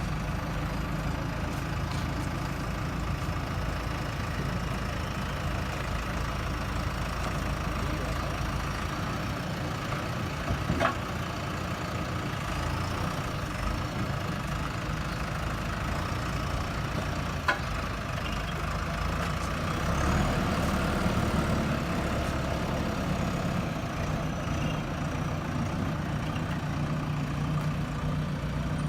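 Diesel engine of a JCB backhoe loader running steadily at a low drone, with two sharp knocks about eleven and seventeen seconds in and a short rise in engine level around twenty seconds in.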